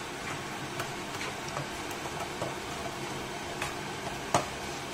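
Instant noodles sizzling in a frying pan while a spatula scrapes and taps against the pan, making scattered clicks, with one sharper knock near the end.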